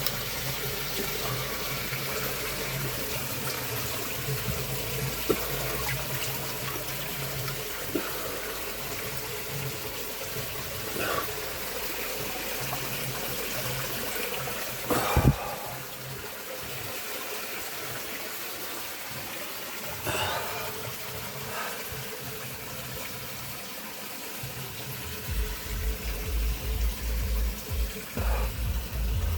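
Falling water rushing steadily, a spring-fed waterfall, with a few sharp knocks; low thumps begin near the end.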